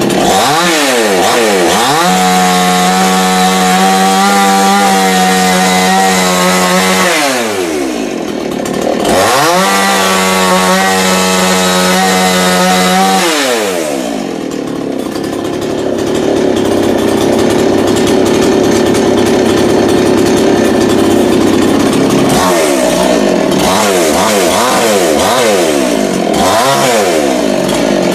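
A chainsaw revved up to full speed, held there a few seconds and let back down, twice over. Then it runs rougher and less evenly for several seconds, and near the end it is blipped up and down several times in quick succession.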